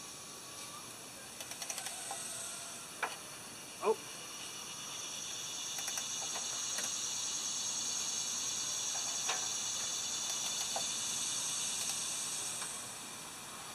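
Ratchet clicks and two sharp metal cracks, about three and four seconds in, as a breaker bar on the crankshaft pulley bolt of a seized Toyosha S88 diesel is heaved back and forth to work the engine free. A steady high hiss swells in the middle and fades near the end.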